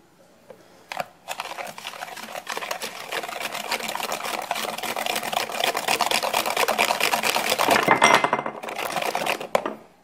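Wire whisk beating eggs and sugar by hand in a bowl: a fast, steady rattle of strokes against the bowl that starts about a second in, grows louder, and stops just before the end.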